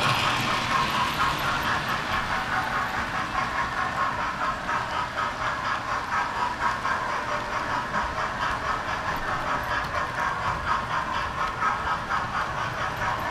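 Model railway train running around the layout, heard close up from on board: a steady clatter of wheels on the track with fast, repeated clicks.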